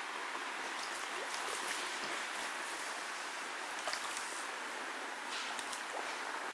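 Small stream flowing, a steady rush of rippling water with a few faint ticks.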